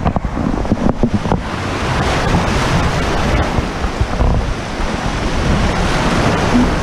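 River water rushing and splashing around inflatable tubes through a shallow rapid, with a heavy rumble of wind and handling noise on the microphone. A few sharp knocks come in the first second and a half.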